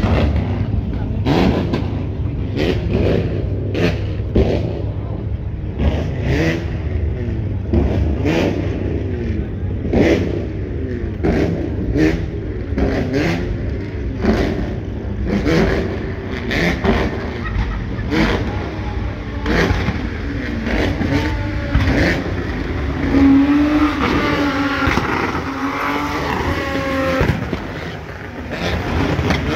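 Car engines revving again and again, pitch rising and falling, over a steady low engine rumble.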